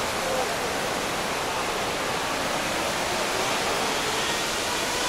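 Steady rush of river water over rapids, a constant full hiss without breaks.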